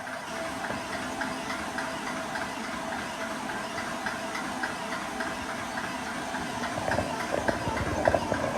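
Small portable high-pressure air compressor running steadily, its pump giving a fast, even pulsing over a hissing mechanical drone. A few low knocks come in near the end.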